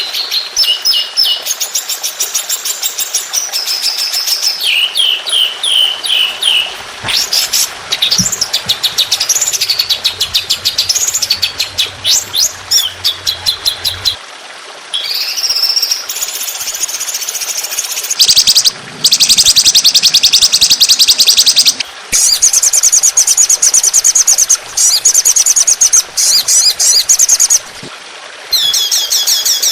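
Songbird training recording ('masteran') of rapid-fire 'tembakan' fill song: loud high-pitched runs of quickly repeated chirps and fast trills, spliced into sections that break off suddenly and start again.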